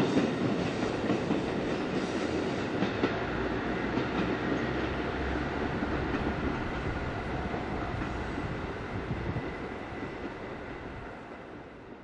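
Diesel railcar train running on the line, a steady train noise that grows fainter toward the end and dies away.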